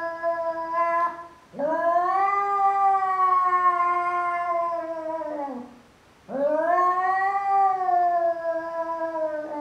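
Domestic cat yowling long, drawn-out threat calls at its own reflection in a mirror, as at a rival cat. The end of one call is followed by two calls of about four seconds each, each rising in pitch at the start and sliding down at the end.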